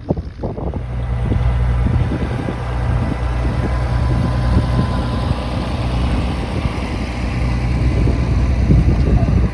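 Old farm tractor's engine running steadily with a low, even hum. It comes in about a second in and cuts off suddenly at the end.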